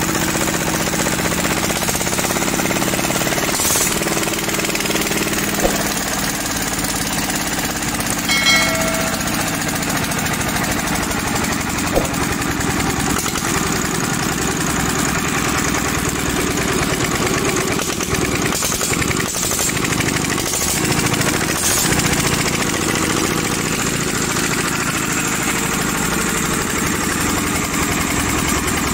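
Daedong single-cylinder diesel engine running steadily on a test run after its injector was cleaned and its spray set by estimate, done to cure hard starting.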